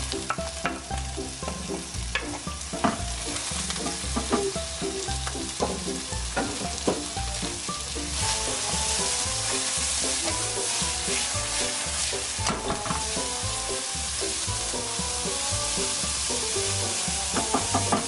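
Washed kimchi and chopped green onions sizzling in a nonstick wok while a spatula stirs and scrapes through them, with frequent short clacks of the spatula against the pan. The sizzle grows louder about eight seconds in.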